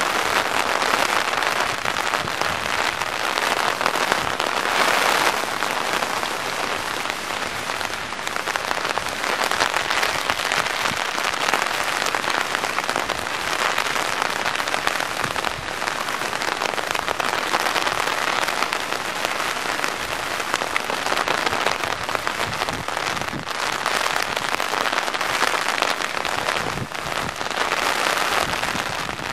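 Heavy rain falling steadily, drops striking an umbrella close overhead in a dense crackle, with rain hissing on wet pavement behind it.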